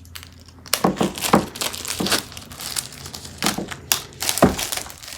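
Packaging of an iPad box crinkling and rustling in irregular strokes as it is handled and unwrapped.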